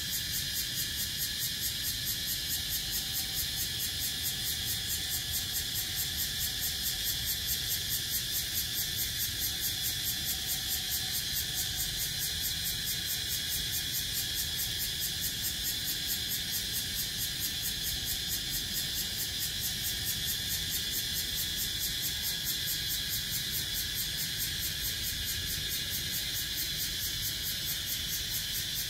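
Cicadas in the trees calling in a steady, high-pitched chorus with a fast, even pulsing.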